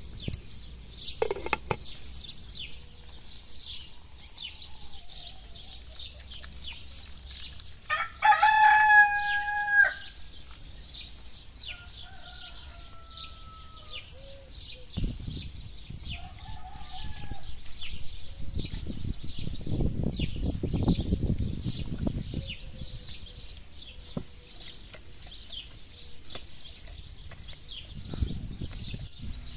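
A rooster crows once, loud and held, about eight seconds in, followed by fainter crows from farther off, over a steady chatter of small birds chirping. Some low rumbling noise comes and goes in the middle and near the end.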